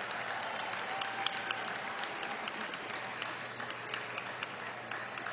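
Ringside audience applauding, a steady patter of many hands clapping.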